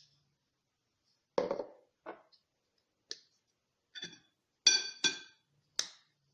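Kitchen glassware and utensils clinking: a dull knock about a second and a half in, then several sharp clinks, two of which ring briefly like struck glass.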